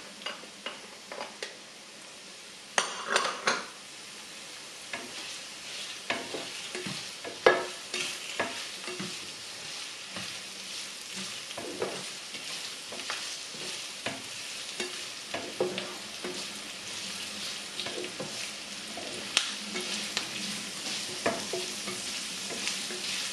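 Sliced onion, green chillies and tempering spices (mustard seeds, fennel seeds, dried red chillies) frying in hot oil in a ceramic-coated pan, with a steady crackling sizzle that grows louder. A spatula stirs and scrapes through the pan, with many sharp clicks and a louder cluster of them about three seconds in.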